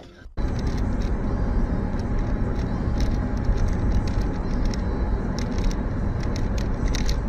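Steady engine and road noise of a moving car, starting suddenly a fraction of a second in, with a few faint ticks.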